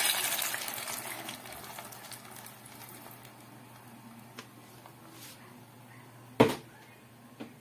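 Blended tomato-chipotle cream sauce sizzling loudly as it is poured into hot oil in a pot. The sizzle fades over the first couple of seconds to a faint crackle. A single sharp knock comes about six seconds in.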